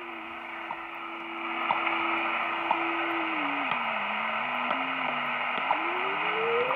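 Kenwood R-5000 shortwave receiver in USB mode tuned across the WWV time signal at 10 MHz: static hiss with faint ticks about once a second, and a beat whistle that holds steady, dips lower about three and a half seconds in, then rises sharply near the end as the tuning knob is turned. The tuning is being checked against the station to show that the frequency readout sits slightly off.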